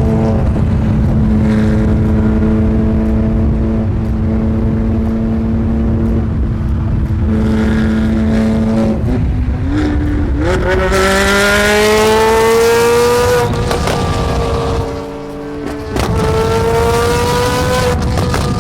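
Sports car engine running at a steady cruise, then revving up: the engine note climbs about ten seconds in, drops off for a moment near fifteen seconds, and holds at a higher pitch.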